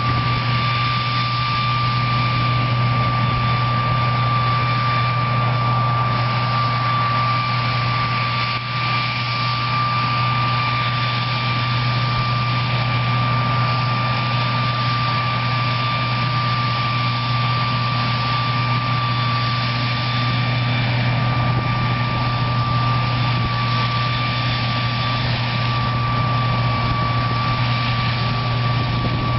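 Cotton picker running steadily at work: a deep engine hum under a constant high whine, the sound of the machine's air-conveying fan system.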